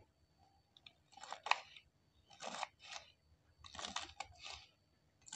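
Kitchen knife slicing through a bundle of fresh green beans on a wooden cutting board: a run of short, crisp crunching cuts, beginning about a second in and coming irregularly, roughly every half second.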